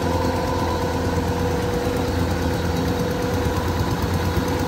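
Kubota DC-105X combine harvester's diesel engine running steadily under load while harvesting lodged rice, with a steady whine over the engine drone.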